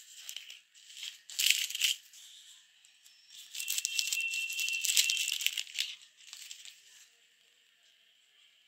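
Clear plastic film on notebook pages crinkling and crackling, with paper rustling, as the pages are handled and turned: a short burst about a second and a half in and a longer one from about three and a half to six seconds.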